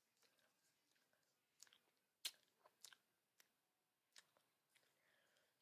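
Faint chewing of a jelly bean close to the microphone: a handful of scattered sharp mouth clicks, the loudest a little over two seconds in.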